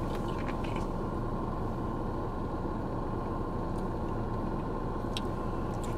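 Steady low rumble and hiss of a stationary car, heard from inside its cabin, with one faint click about five seconds in.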